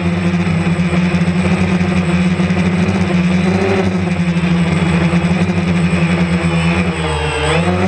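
DJI Phantom 2 Vision+ quadcopter's motors and propellers buzzing steadily; near the end the pitch dips briefly and rises again.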